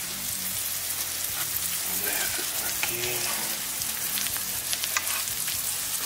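Cheese-topped tostadas with grilled meat sizzling on a hot grill grate: a steady sizzle with sharp crackles here and there.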